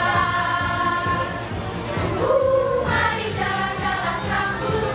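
Children's choir singing a Christmas song, holding long notes, over an accompaniment with a steady beat of about two ticks a second.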